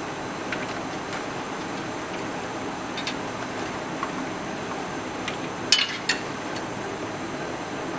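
Light clicks and rattles of PC power-supply cables and plastic connectors being handled and plugged in inside a computer case, with two sharper clicks close together a little past the middle, over a steady background hiss.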